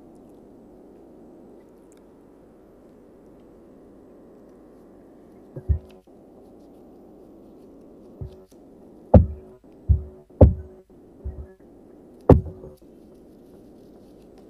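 Low steady hum, then from about halfway a series of loud, irregular low thumps with a faint held tone between them, like music with a heavy bass beat.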